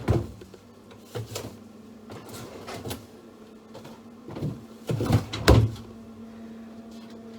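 Knocks and clunks of groceries and plastic punnets being set into a fridge, about half a dozen separate bumps, the loudest about five and a half seconds in. A low steady hum runs underneath from about a second and a half in.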